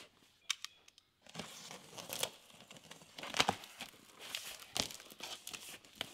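Cardboard shipping box being opened by hand: packing tape tearing and cardboard flaps scraping and crackling, with several sharp snaps.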